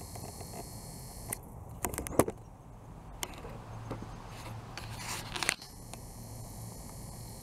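Camera handling noise: a few sharp clicks and scrapes, the loudest about two seconds in and more just past five seconds, over a steady outdoor hiss.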